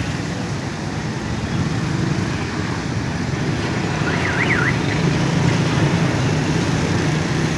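Street traffic: auto-rickshaw, motorcycle and car engines running, with a steady hum that swells slightly about five seconds in. A little past four seconds, a short high warbling tone rises and falls about three times.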